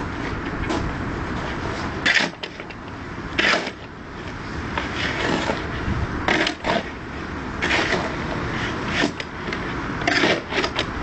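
Short scrapes and knocks from stone and tool work on driveway kerbstones, coming irregularly about seven times, over a steady low rumble.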